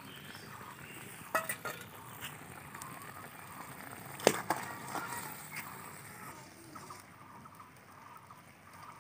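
Metal spoon and spatula clinking against a steel kadai as fried brinjal is scraped into a fish curry and stirred. A handful of sharp metal clinks, the loudest about four seconds in.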